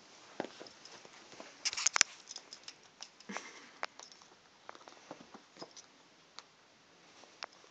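Cat scuffling with a rabbit-fur toy on carpet: irregular soft rustles and small scratchy clicks as it grabs, kicks and bites the toy, with a brief burst of louder clicks about two seconds in.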